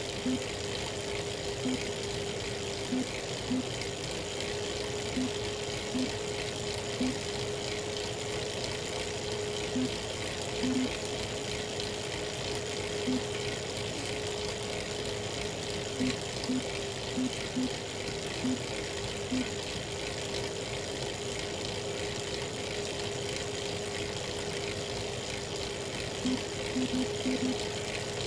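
Elite Real Turbo Muin B+ fluid direct-drive trainer running under pedalling with a steady whine, broken by short cracking knocks at irregular intervals, several in quick succession near the end. This is the cracking noise the trainer makes whenever power goes over about 200 watts, at any cadence.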